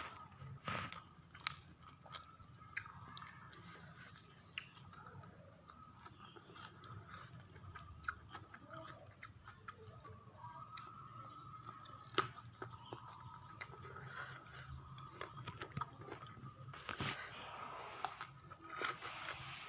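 Close-miked chewing and biting of spicy chicken feet, with many irregular wet clicks and small crunches, over a faint steady high tone.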